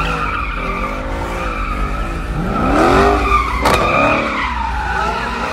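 A car spinning donuts: the tyres squeal steadily on the pavement while the engine revs up and down. A single sharp crack comes a little past the middle.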